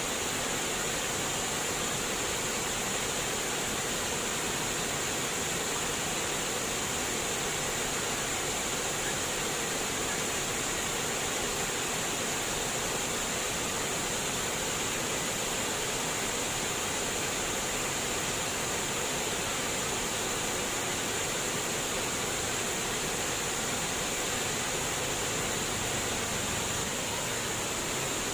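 Running water splashing and trickling in a steady, even rush that does not change.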